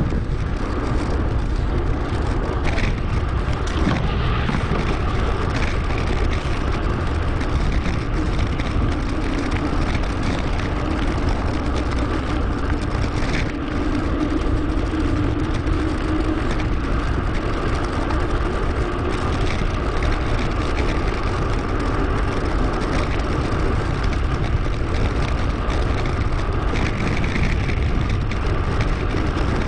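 Steady wind rush and tyre-on-road rumble picked up by a bike-mounted action camera while riding, sped up about two and a half times.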